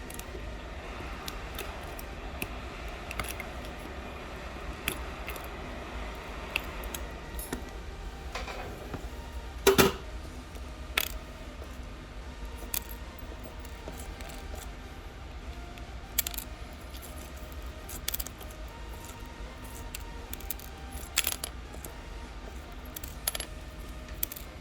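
Scattered light clicks and clinks of a tool picking and tapping at shattered iPhone 11 back glass, small glass pieces ticking against hard surfaces, with the loudest clink about ten seconds in. A steady low hum runs underneath.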